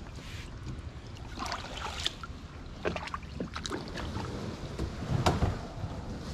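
Shallow muddy creek water sloshing and splashing as feet in flip-flops wade and a kayak paddle blade dips in, a string of irregular splashes with the loudest about five seconds in.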